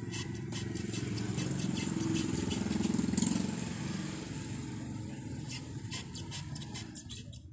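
A thin blade scraping and prying the old surround and glue off a Bose 301 Series IV woofer's metal basket rim, heard as quick scratchy ticks. Under it a low rumble swells about three seconds in and fades.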